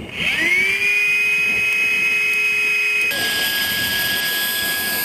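Jet Joe Jr model jet turbine being started with a hand-held electric starter: a whine that rises quickly and then holds steady. About three seconds in it changes abruptly to the higher, steady whine and hiss of the lit turbine running.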